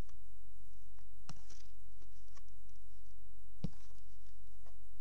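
Handling noise: two sharp knocks about two seconds apart, with faint ticks and rustles between them, over a steady low hum.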